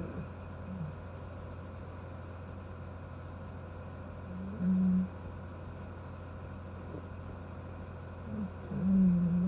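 Pit bull snoring in its sleep: low, steady-pitched snores lasting about half a second each, one about four and a half seconds in and another near the end with a short one just before it.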